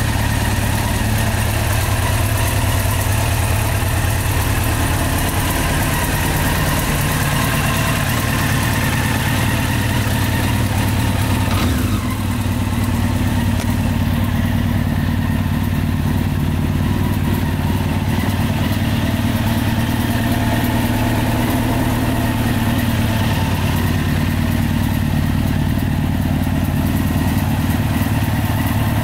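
Honda CBR954RR Fireblade's 954 cc inline-four idling steadily through an aftermarket twin-outlet slip-on silencer.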